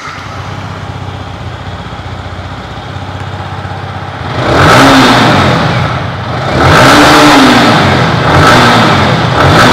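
Yamaha R15 V4's 155 cc liquid-cooled single-cylinder four-stroke engine idling through its stock exhaust for about four seconds, then revved in a few throttle blips, each rising and falling back to idle, with another starting near the end.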